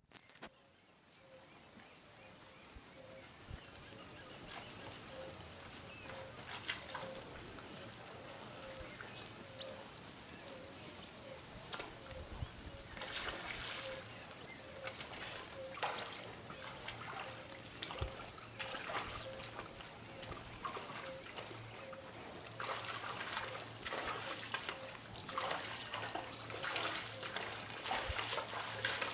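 Crickets chirping: a high, steady, rapidly pulsing trill that fades in over the first few seconds, with faint scattered rustles and clicks over it.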